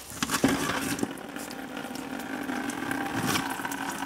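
Engine coolant draining from a car radiator and splashing steadily into a plastic bucket, the flow starting about half a second in.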